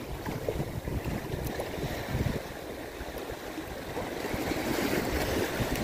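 Small waves lapping and washing over a shallow, muddy shoreline, with a low rumble of wind on the microphone.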